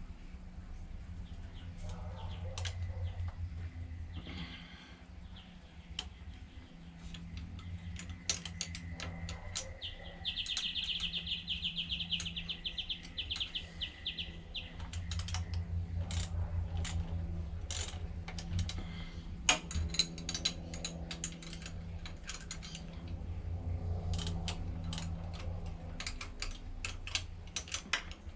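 Socket ratchet clicking in quick runs while bolts on a motorbike engine are turned, with scattered sharp metal tool clinks.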